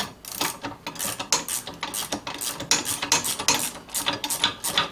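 Ratchet wrench clicking in quick repeated strokes as a bolt is backed off.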